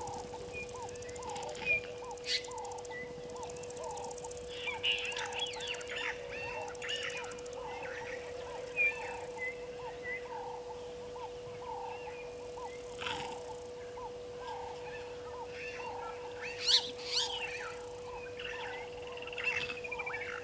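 Bush ambience of birds calling, with one short call repeated about twice a second, scattered higher chirps and whistles, and a few louder sharp calls. A steady hum runs underneath.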